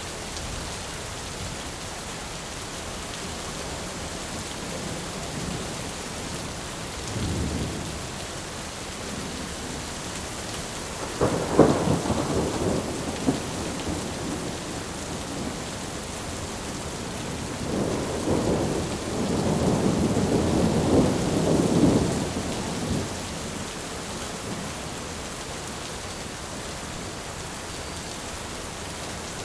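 Steady rain with thunder: a faint low rumble about seven seconds in, a sharp clap that rolls on for a couple of seconds a little before the middle, and a longer, louder rolling rumble past the middle.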